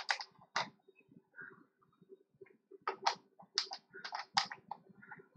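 Light, sharp clicks and taps, a short cluster at the start and a longer irregular run from about three seconds in, over a faint steady hum.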